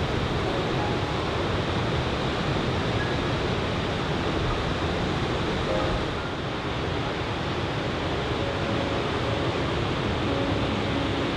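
Surf breaking on a sandy beach mixed with strong wind, a steady even rush with a slight dip about six seconds in.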